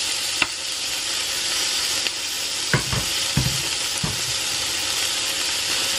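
Chicken pieces frying in oil in a non-stick frying pan, sizzling steadily. A metal spoon stirring them clicks and knocks against the pan a few times, most around the middle.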